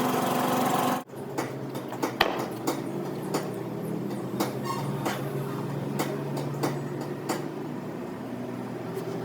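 An engine running stops abruptly about a second in. After that come scattered metal clinks and knocks over a steady low hum.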